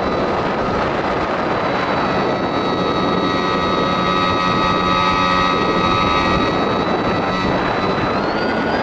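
Onboard sound of a Skywalker X-8 flying wing in flight: a heavy rush of wind over the microphone with the steady whine of its electric motor and propeller. About eight seconds in, the whine steps up in pitch as the motor speeds up.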